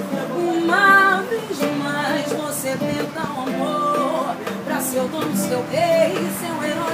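Samba played live on an acoustic guitar with a pandeiro keeping time, its jingles shimmering, while a voice sings along.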